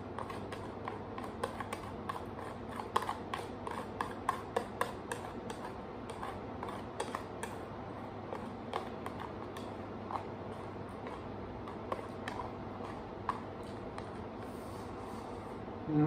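Chopsticks clicking and scraping against a plastic food container while someone eats straight from it: many small irregular clicks, thicker in the first half, over a steady low background hum.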